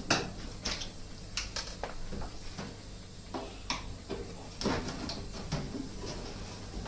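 Irregular sharp clicks and light knocks of a screwdriver and hands working the screws on a washing machine's top cover, with the loudest knocks just after the start and about 4.7 s in.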